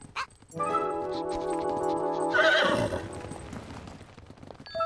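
A cartoon horse whinnies about halfway through: a wavering neigh that falls in pitch at the end. It sits over background music holding steady chords.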